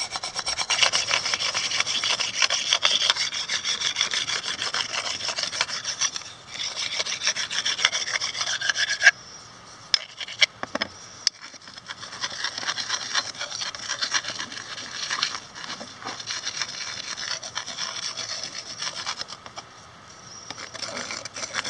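A cedar spatula being sanded with a rock used as a sanding block: fast back-and-forth rasping strokes of stone on wood. The strokes pause briefly about nine seconds in, with a few sharp clicks, then carry on.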